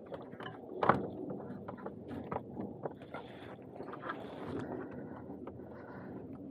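The stock air filter housing of a Hyundai Santa Cruz being worked loose by hand: irregular knocks, clicks and rattles of plastic parts, with one louder knock about a second in.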